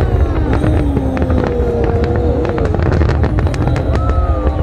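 Large aerial fireworks display: a steady low rumble of shell bursts overlaid with dense crackling.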